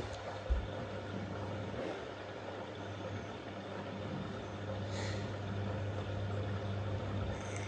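LG F1222TD front-loading washing machine running a cycle: a steady low hum, with a faint click about five seconds in.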